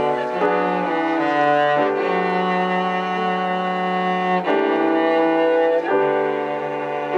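Slow instrumental music of held, sustained chords that change about every one to two seconds.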